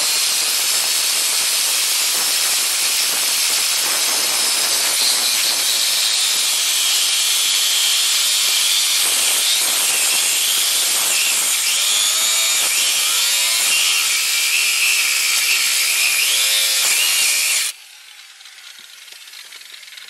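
5-inch angle grinder with a cutoff wheel cutting through a hardened steel clevis bolt: a loud, steady grinding whose pitch wavers up and down as the wheel bites into the bolt. It stops abruptly near the end.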